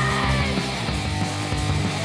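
Hardcore punk band recording from a 1997 cassette demo, with loud distorted electric guitar driving the song; a shouted vocal trails off near the start.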